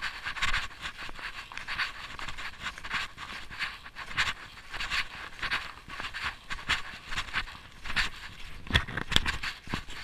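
Close, steady breathing of a snowshoer wearing the camera, a breath well under a second apart in a quick, even rhythm, with a few sharp knocks near the end.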